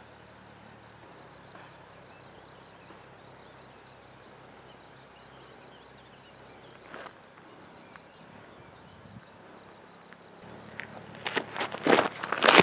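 Crickets trilling with a steady, high-pitched tone. Near the end, footsteps crunch loudly on a gravel path as someone walks up.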